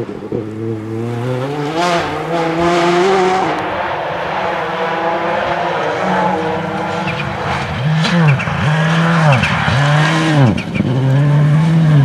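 Ford Focus WRC rally car's turbocharged four-cylinder engine driven hard, revs climbing and dropping through gear changes. From about eight seconds in, the revs swell up and fall back in quick repeats, under a second apart.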